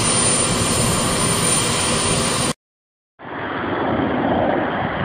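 Jet aircraft engines running steadily, a loud whoosh with a thin high whine on top. It cuts off dead about two and a half seconds in. After half a second of silence, a duller, muffled engine rumble fades back in.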